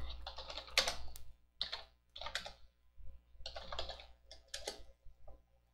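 Typing on a computer keyboard: irregular keystrokes in small runs, with short pauses between them.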